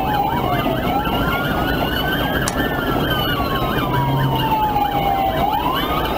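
Police car sirens: one slowly wailing up and down in pitch, another yelping rapidly at the same time, over steady road noise from the moving vehicles.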